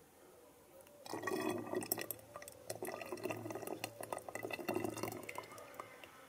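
Tomato juice gurgling and dripping, with a dense patter of small crackles, starting about a second in and dying away shortly before the end.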